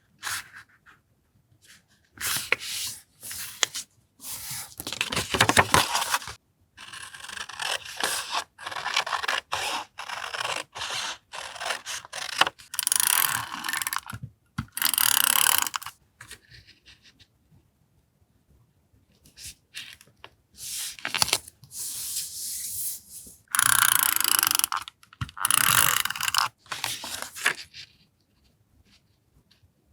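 Close-up paper sounds of journal collage work: paper and stickers handled, rubbed and scraped in bursts of short scratchy strokes, with a few longer stretches and brief pauses between.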